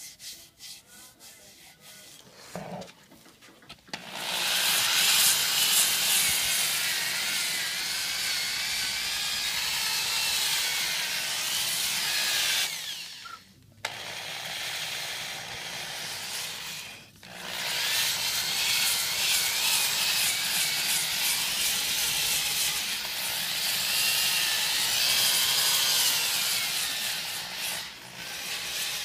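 Handheld power tool spinning a sanding drum against a wooden instrument neck, sanding its profile: a steady abrasive rush with a wavering motor whine that shifts as the drum is pressed on. It starts about four seconds in after a few light knocks, and eases off briefly twice in the middle.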